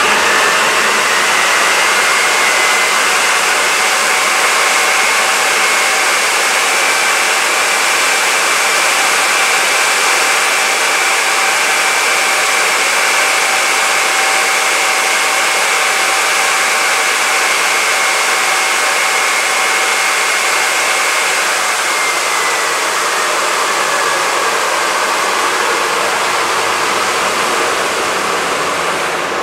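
Fairchild J44 turbojet turning over during a start attempt: a loud steady rush of air with a high turbine whine that rises at first, holds steady, then falls away as the engine spools down about two-thirds of the way through.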